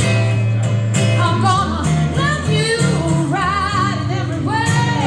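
Live band music: a singer holding wavering, vibrato notes over a steady bass line and guitar accompaniment.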